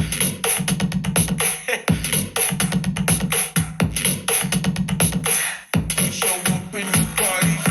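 Electronic dance music with a punchy drum-machine beat, heavy bass and chopped vocal samples, played through a Tronsmart T7 Mini Bluetooth speaker at 73% volume and picked up by microphones about a metre away.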